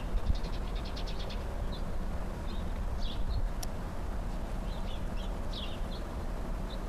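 Small birds chirping: a quick run of high chirps in the first second or so, then scattered single chirps. Under them runs a steady low rumble.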